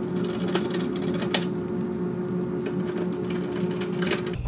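A small electric motor whirring at one steady pitch, with light clicks and rattles over it, cutting off suddenly near the end.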